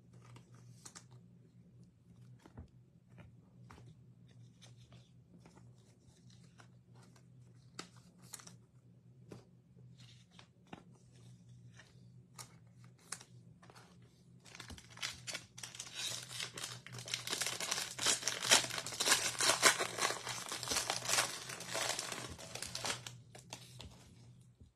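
Trading cards being handled with light clicks and rustles, then about fifteen seconds in a Donruss football card pack wrapper is torn open and crumpled, crinkling loudly for about eight seconds.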